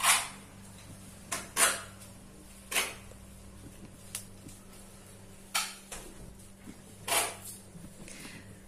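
About eight sharp knocks and clatters of kitchen utensils, spaced irregularly a second or so apart, over a low steady hum.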